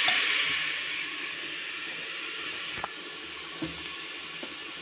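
Chopped spinach sautéing in oil in a steel pot, sizzling as it is stirred; the sizzle drops away about a second in, leaving a softer steady hiss with a few light clicks.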